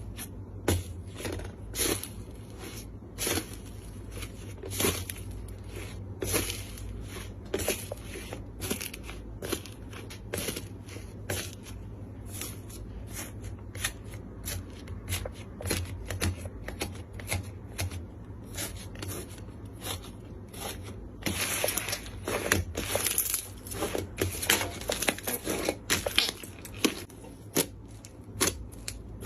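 Slime being squeezed and pressed by hand, making irregular sticky pops and crackles that grow denser and louder about two-thirds of the way through.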